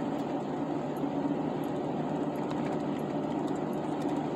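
Chevrolet Silverado 4.8-litre V8 exhaust through a Carven R muffler, heard inside the cab while the truck cruises: a steady low drone mixed with road noise.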